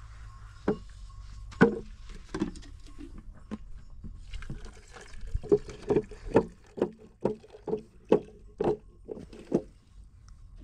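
A series of knocks: a few scattered ones early, the loudest about a second and a half in, then a steady run of about ten, roughly two a second, through the second half.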